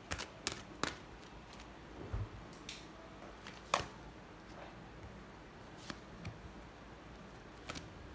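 Oracle cards being drawn from a deck and laid down one by one on a soft blanket: scattered sharp card snaps and light taps, the loudest a little under four seconds in.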